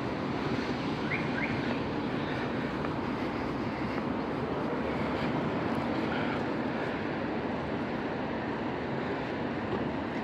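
Steady city street traffic noise, an even rumble of passing vehicles with no single event standing out.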